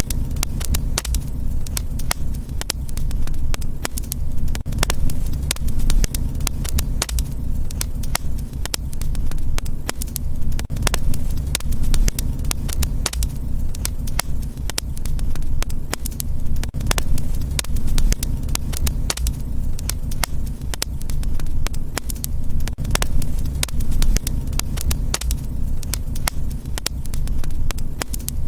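Wood fire crackling: frequent sharp pops and snaps over a steady low rumble of burning.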